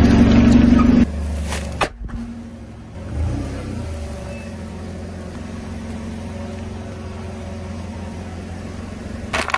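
Car engine running at low speed with a steady low hum as the car creeps forward over asphalt. A loud sound cuts off abruptly about a second in, and near the end comes a short sharp crack as the tyre crushes an object.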